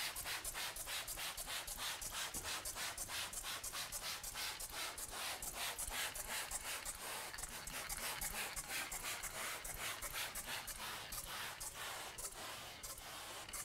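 Glass window pane being scrubbed by hand in quick back-and-forth strokes, about four a second, a dry scratchy rubbing that fades near the end.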